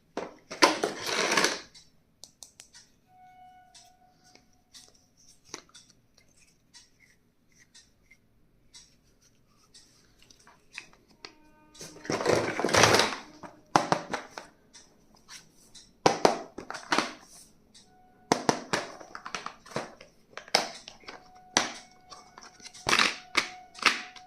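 Stationery being unboxed: packaging rustling in loud bursts of a second or so, and many sharp clicks and taps of items being handled, over faint background music.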